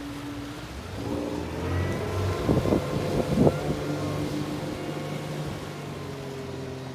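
Motorboat engine of a wooden runabout at speed, its steady note growing louder as the boat passes, then fading as it runs away. Two short, sharp spikes of noise stand out near the middle.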